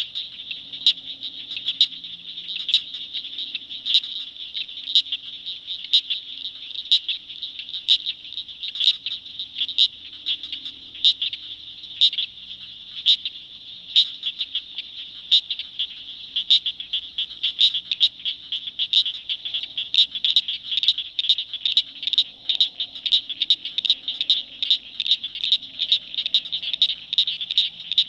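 Frog chorus in a swamp: a dense, unbroken high-pitched trilling, with sharp single calls standing out about once a second and coming faster in the second half, over faint low croaking.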